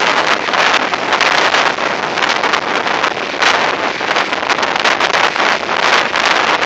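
Hurricane winds gusting hard and buffeting the phone's microphone: a loud, rushing roar that surges and eases from gust to gust, with short sharp buffets.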